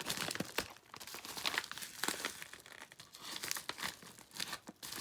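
Tough parcel packaging being crinkled and torn open by hand: an irregular run of crackles and rips.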